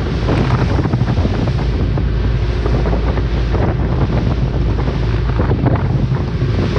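Heavy wind buffeting the microphone over a boat running fast through rough water: a steady low engine drone under the rushing, splashing wake.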